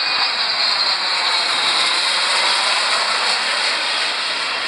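Business jet flying low overhead on landing approach, its engines giving a steady, hissing jet noise.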